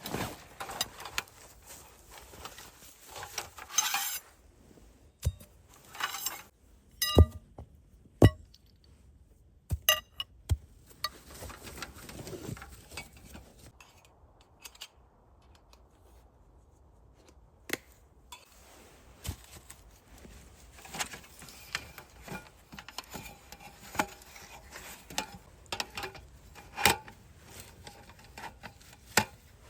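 Metal camp cookware and utensils clinking and knocking as they are handled, in irregular sharp strikes, a few of them ringing briefly.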